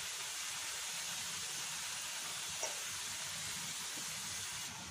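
Steady background hiss at an even level, with one faint tick about two and a half seconds in; the hand-mixing of flour in the bowl is not heard as distinct rustling.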